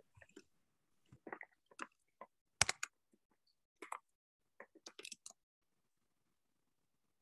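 Faint, irregular clicks and small knocks, a dozen or so, that stop about five seconds in.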